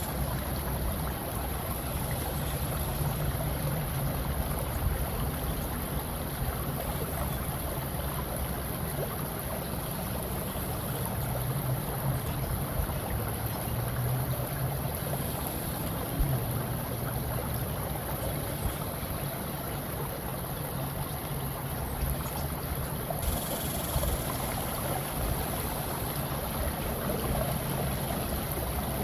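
Steady rushing water ambience: a continuous, even wash of noise with a constant high hiss on top and no separate events.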